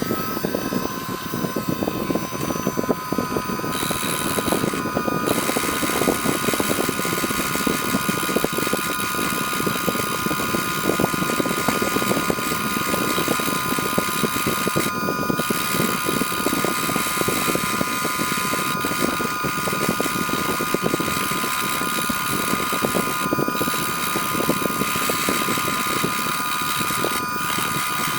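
Small high-speed rotary drill grinding away a cracked backlight coil on an iPhone 6 logic board: a steady high whine over a gritty grinding noise, running without a break.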